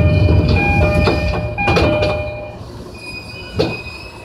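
Steel train wheels squealing on the rails over the loud rumble of a train rolling. The squeal comes in several stretches and the rumble fades after about two and a half seconds. A sharp clack comes about three and a half seconds in.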